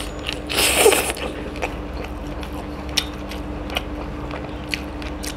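Close-miked eating sounds: a noisy bite into a piece of curried chicken about a second in, followed by scattered wet clicks of chewing and of fingers working the food.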